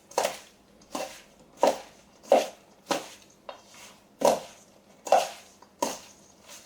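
Coleslaw (shredded cabbage and carrots in mayonnaise dressing) being stirred and tossed in a bowl with a utensil, a short scraping stroke about every three quarters of a second, eight or nine in all.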